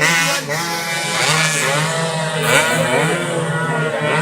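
Racing motorcycle engines revving hard, several at once, their pitches rising and falling as they pass, over a steady low hum.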